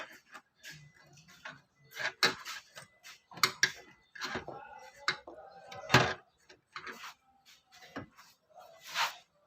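Metal parts and hand tools clinking, knocking and scraping at irregular intervals during reassembly of a power steering box, with the sharpest knock about six seconds in.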